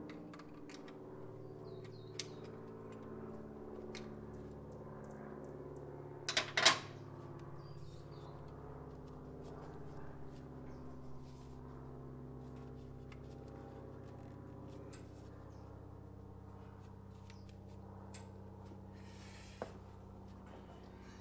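Occasional metallic clicks and clunks of hand tools and engine parts being handled, the loudest a quick cluster about six seconds in, over a steady low hum.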